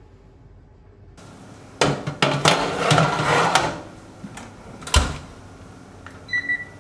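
Built-in wall oven being loaded: the drop-down door and metal rack clatter as a loaf tin goes in, the door shuts with a sharp knock about five seconds in, and a short electronic beep follows as the oven is set.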